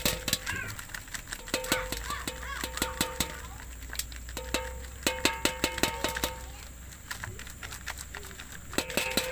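Plastic bottle full of live grasshoppers being tapped and shaken against the rim of a perforated aluminium colander, the grasshoppers dropping onto the metal. Clusters of sharp taps and clicks, some of them setting the aluminium ringing briefly.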